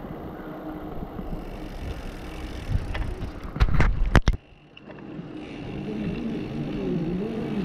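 Wind and rolling noise from a mountain bike riding on asphalt, heard through a handlebar-mounted camera, with a few sharp clicks and knocks about three to four seconds in, then a brief sudden dip in the noise.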